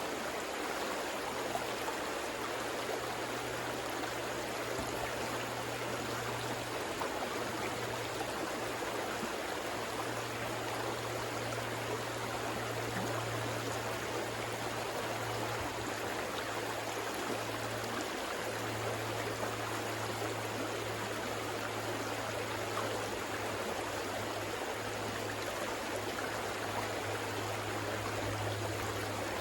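River water rushing and flowing in a steady, even wash, with a low steady hum underneath that fades briefly a few times.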